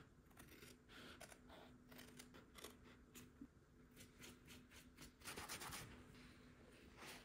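Scissors snipping through the foam padding on a steering wheel rim: faint short snips and rustles of the material, loudest a little after five seconds in.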